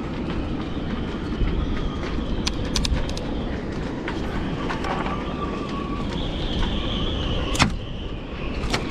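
A thin board panel being prised by hand off a fibreglass boat's cabin side, creaking and cracking as it tears away from the sealant, with a few sharp cracks about three seconds in and a loud one near the end. A steady wind rumble on the microphone lies underneath.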